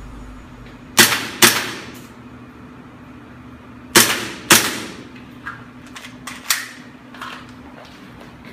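Airsoft Glock pistol firing two double taps: pairs of sharp shots about half a second apart, about a second in and about four seconds in. A few lighter clicks and knocks follow.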